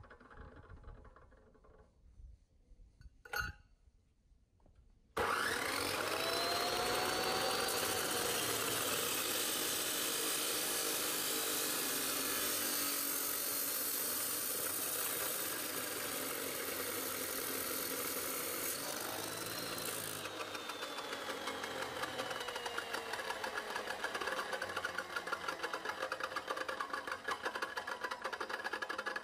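A Makita M2400B 355 mm abrasive cut-off saw switched on, its motor whining up to speed, then the wheel grinding through square steel tubing. About twenty seconds in the trigger is released and the wheel winds down with a long falling whine. A single sharp knock comes about three seconds in, before the saw starts.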